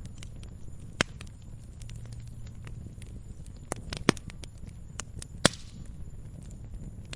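Campfire crackling: burning wood gives off irregular sharp pops, the loudest about a second in, at four seconds and at five and a half seconds, over a low steady rumble of the flames.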